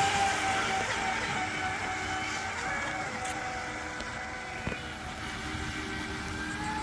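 Brushless electric motors of RC speedboats whining at speed over a hiss of water. The whine is steady, sags a little about three seconds in and climbs again near the end.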